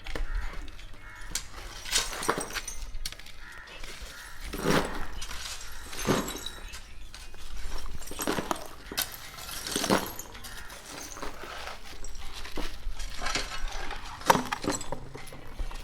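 Construction debris being cleared by hand: hard rubble clattering and crashing as it is tossed and dumped, with glassy clinks and breaking, in irregular impacts about once a second. The sharpest crash comes near the end.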